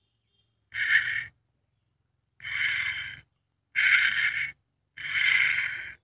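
Small DC motor and gears of a homemade wired remote-control car whirring in four short bursts, each about a second or less, as the controller's switches are pressed and released.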